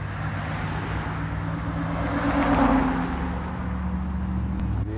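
Road traffic beside the sidewalk: a car passing, its engine and tyre noise swelling to a peak a little over halfway through and then fading, over a steady low hum of traffic.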